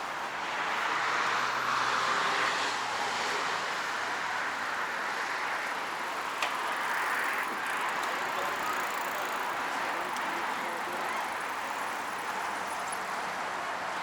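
Road traffic noise: a steady hiss of passing cars, swelling as a vehicle goes by in the first few seconds, with a single sharp click about six seconds in.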